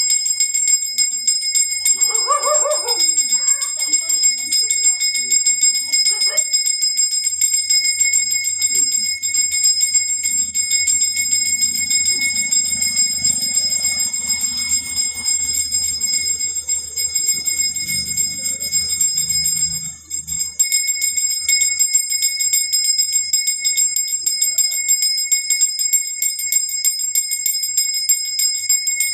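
Puja bell ringing rapidly and without pause, many strokes a second. The ringing falters briefly about twenty seconds in.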